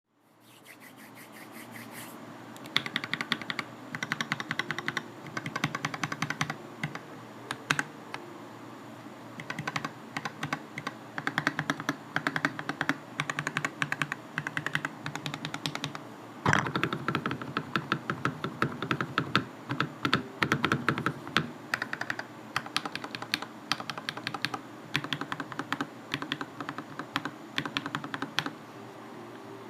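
TM680 mechanical keyboard, fitted with lubed Akko CS Rose Red and Radiant Red linear switches and dampened with case foam, PCB foam, tape and Holee-modded stabilizers, being typed on in quick bursts with short pauses. One heavier, louder keystroke comes about halfway through.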